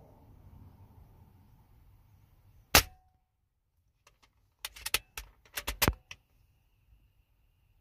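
A Diana Stormrider .22 pre-charged pneumatic air rifle fires one sharp shot about a third of the way in. A couple of seconds later comes a quick run of metallic clicks as the bolt is cycled to chamber the next pellet.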